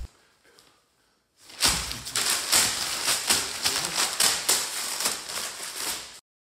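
Sheets of paper being crumpled by hand, a loud run of rapid crackling that starts about a second and a half in and stops abruptly near the end.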